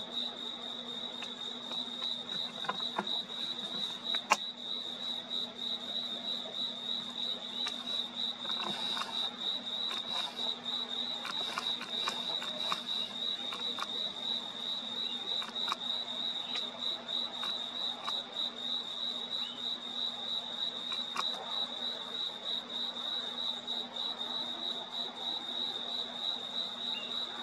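Night-time crickets chirping in one steady, fast-pulsing high trill, over a steady low hum. A single sharp click sounds about four seconds in.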